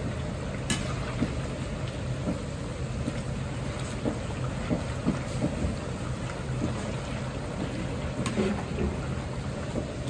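Batter-coated chicken pieces deep-frying in a large wok of oil: a steady sizzle over a low rumble. A metal ladle clicks against the wok twice, about a second in and near the end.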